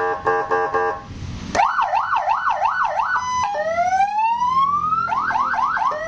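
CJB200W electronic siren amplifier sounding through its speaker and switched between tones. First comes about a second of pulsing, stepped beeps. Then a fast up-and-down yelp at about three sweeps a second, a brief steady tone, one long rising wail, and the fast yelp again near the end.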